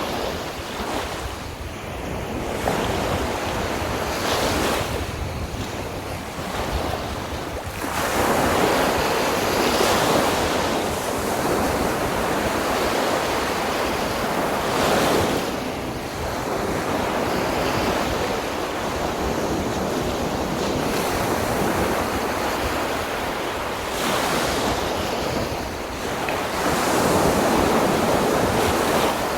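Sea waves breaking on a beach, the surf swelling and easing every few seconds in a steady wash, with wind buffeting the microphone.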